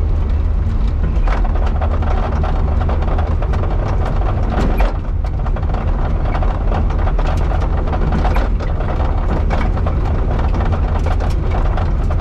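Rally car's engine running with tyre and road noise, heard inside the cabin, steady and loud, with frequent knocks and rattles throughout.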